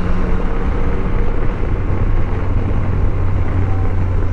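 Yamaha Tracer 900 GT's three-cylinder engine running steadily under way, with wind rushing over the microphone.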